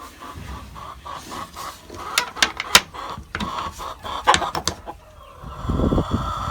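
Hens clucking in a run of short repeated calls, with several sharp clicks in the middle and a low rumble near the end.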